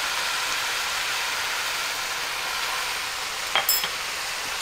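Chicken and vegetables sizzling steadily as they stir-fry in a hot wok. About three and a half seconds in, a short ringing clink.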